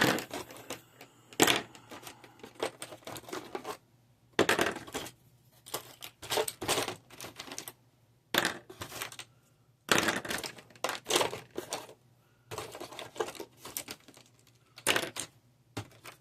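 Small plastic game pieces clicking and clattering against each other as they are handled and set down, in irregular bursts with short pauses between.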